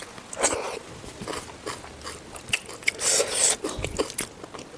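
Close-miked eating: a mouth chewing pork curry and rice, with short wet clicks and smacks. Two louder crunching bites come about half a second in and around three seconds in.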